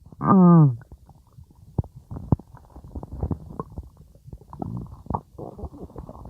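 Stomach growling: a loud gurgle sliding down in pitch just after the start, then scattered soft pops and bubbly gurgles that pick up again over the last two seconds.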